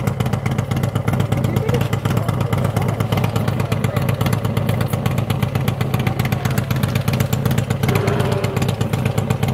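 Wind buffeting the microphone: a steady, loud noise that is heaviest in the low end and flutters rapidly.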